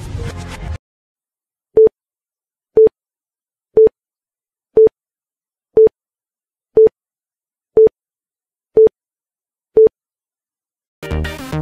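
Countdown timer beeping once a second: nine short beeps, all of the same pitch. Electronic workout music cuts off just before the beeps and comes back near the end.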